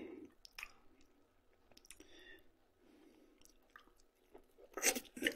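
Soft eating sounds close to the microphone: a fork picking a boiled potato from a plate, with faint chewing and mouth noises. A louder burst of sound comes briefly near the end.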